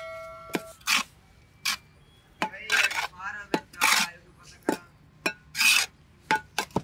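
A steel trowel and a hand scraping and spreading gritty cement mix into a metal pillar mould: short, irregular scrapes and rasps.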